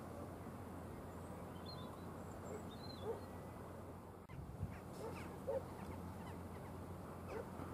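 A bird giving a series of short, repeated calls from about two and a half seconds in, over a steady background hiss.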